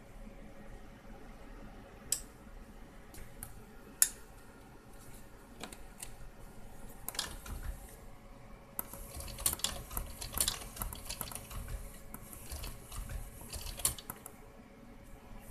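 Sharp scattered clicks of tactile push-buttons and switchgear on a Sony DTC-2000ES DAT deck's front-panel board, a few singly early on, then crowding into a quick run of clicks and rattles between about 9 and 14 seconds in. A faint steady hum lies underneath.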